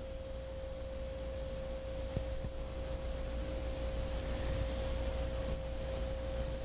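A steady, single-pitch tone over a low hum, with a faint click about two seconds in.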